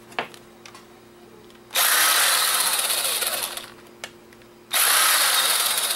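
Cordless driver spinning out tiny screws from a camcorder's plastic casing, in two runs of about two seconds each, with a short pause and a small click between them.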